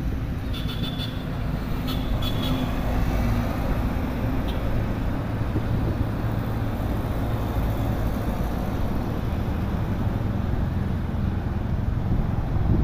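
Road traffic passing below: a steady low rumble of car, van and motorcycle engines and tyres. A few short high-pitched chirps come about a second and two seconds in.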